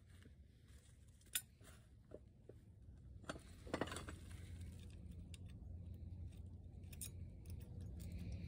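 A few light metallic clinks and taps as the cylinder of a Wisconsin V4 engine is handled, over a low rumble that grows louder after a few seconds.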